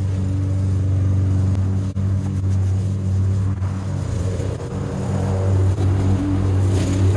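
Petrol lawn mower engine running steadily while cutting long grass, with small brief dips in level.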